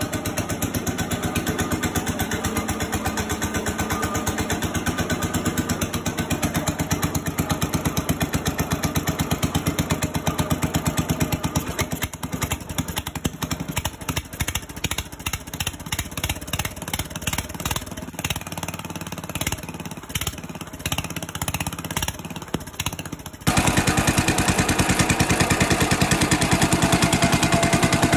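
1965 Cub Cadet 100's Kohler 8 hp single-cylinder engine running after years of sitting. About halfway through, its firing turns uneven and stumbles. Near the end it runs steadily again, louder.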